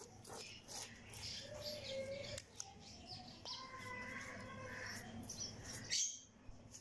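Birds chirping and calling, a scatter of short high chirps and gliding notes, with one sharp click about six seconds in.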